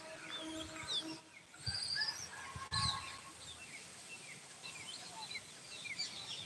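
Many short, high chirping calls overlapping throughout, with a couple of soft thumps about two and three seconds in.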